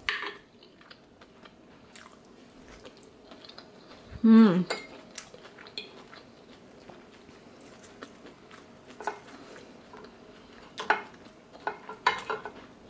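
A metal fork clinking and scraping against a plate as food is picked up, in scattered sharp clicks. About four seconds in comes a short voice sound falling in pitch, the loudest thing here.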